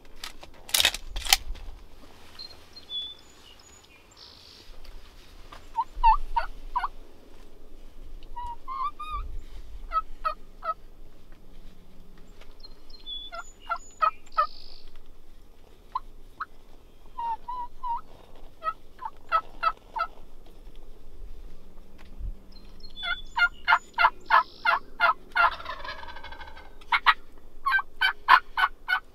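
Wild turkey calling: repeated short runs of quick yelping and clucking notes, with a rattling gobble near the end. Two sharp clicks about a second in.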